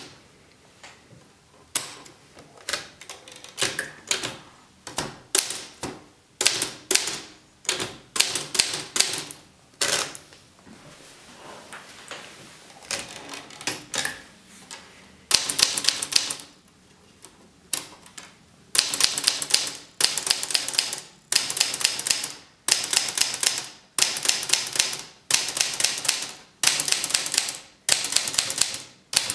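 Olivetti Studio 44 manual typewriter being typed on: type bars clacking against the platen in runs of keystrokes. The typing is lighter and more scattered for the first half, then comes in fast, loud runs of about a second each with short pauses between.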